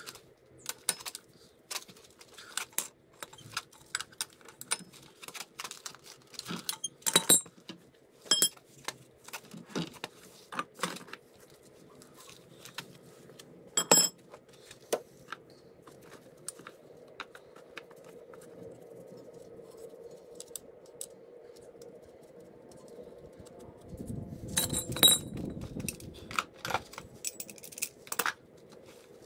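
Metal hand tools and small metal parts clicking and clinking at irregular intervals during scooter repair work, a few strikes ringing out sharply. About 24 seconds in there is a short spell of low rumbling handling noise.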